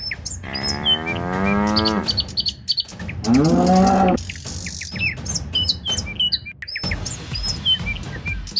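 Cattle mooing twice, two long low calls of over a second each, the first about half a second in and the second about three seconds in, with many short bird chirps throughout.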